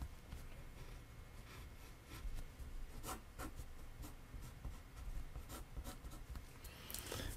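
Pencil drawing on paper: faint, soft scratching strokes, a few short ones standing out.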